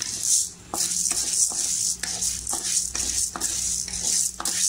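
Urad dal frying in a metal kadai, with a steady sizzle. A wooden spatula stirs the lentils and scrapes the pan in short strokes, a few a second.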